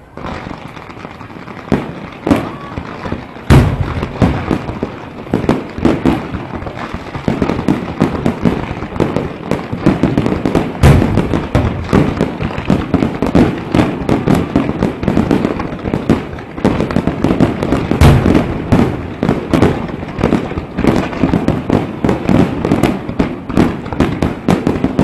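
Fireworks display going off in a dense, continuous barrage of bangs and crackling, starting suddenly, with heavier booms about three and a half, eleven and eighteen seconds in.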